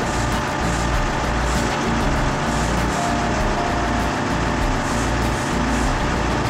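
CAT D8T bulldozer's diesel engine running steadily, a loud even drone with a pulsing low end.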